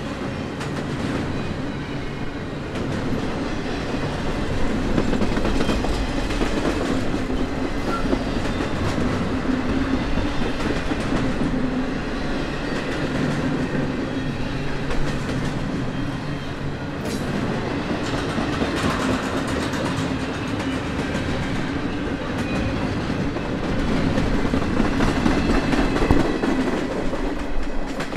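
Norfolk Southern double-stack intermodal freight train passing close by: a steady rumble of loaded well cars rolling on the rails, with frequent clicks and clatter from the wheels and couplings.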